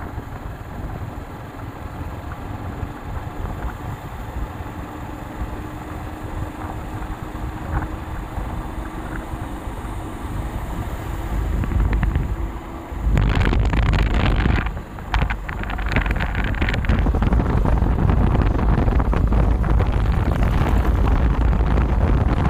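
Motorcycle on the move: a steady engine hum and road noise, with wind buffeting the phone's microphone that turns much louder about halfway through.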